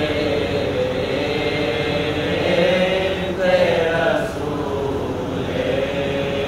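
Men's voices chanting a devotional recitation together, a lead reciter with his chorus of companions, holding long drawn-out notes.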